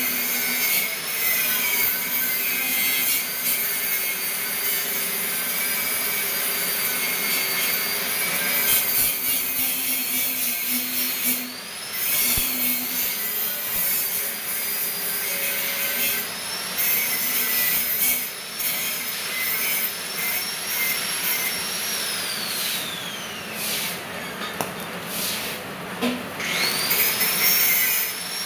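Stick (arc) welding on steel: the electrode arc crackles and sizzles steadily, cutting out briefly a few times and restriking. A thin high tone wavers in pitch through it.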